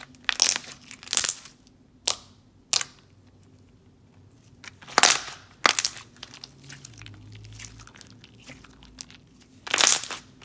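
Thick, glossy slime being pressed, folded and stretched by hand, giving sharp clicks and bubble pops. The pops come in clusters, a few in the first seconds, a pair about five seconds in and a quick run near the end, with softer squishing between.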